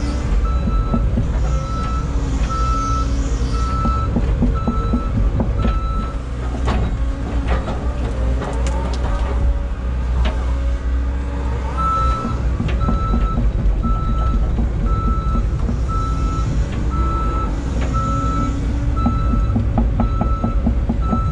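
A 2022 Caterpillar 317 excavator running, its travel alarm beeping a little faster than once a second as the machine tracks. The beeping stops for several seconds midway, with a few knocks and clunks in the gap, then resumes.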